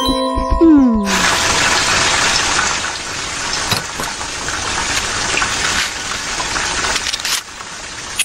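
A short chiming jingle ends in a falling glide. About a second in, water starts gushing steadily, as from a running tap.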